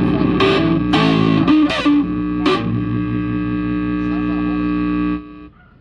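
Distorted electric guitar played through a Marshall amplifier: a few strummed chords in the first couple of seconds, the last one left ringing, then cut off suddenly about five seconds in.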